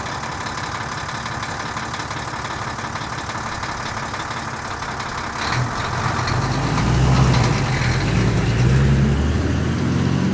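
Vehicle engine running steadily. About five and a half seconds in, a louder, deeper engine rumble comes in and wavers up and down in pitch.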